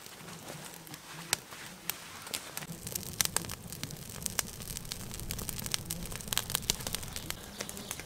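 Small fire of dry twigs crackling as it catches, with sharp pops scattered through. The crackling grows busier after about three seconds.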